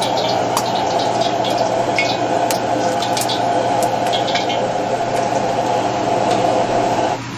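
High-output gas wok burner running with a steady rush of flame, with scattered light clicks and clinks of a metal ladle and egg shell over it.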